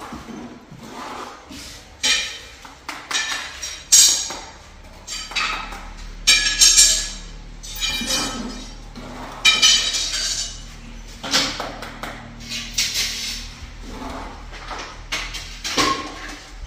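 Metal kitchenware clattering and clinking: a series of irregular knocks, several with a short metallic ring.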